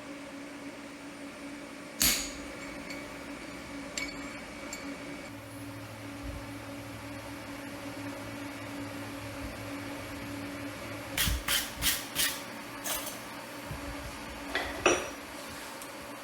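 Hammer blows on steel at the anvil: single strikes about two and four seconds in, then a quick run of four, and a few more near the end, some with a short metallic ring. A steady machine hum runs underneath.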